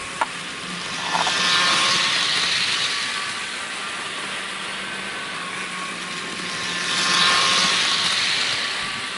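Bachmann HO scale Challenger model locomotive running at speed around the track: a steady motor whir and wheel noise on the rails that swells louder twice as the train passes close by. A sharp click comes just after the start.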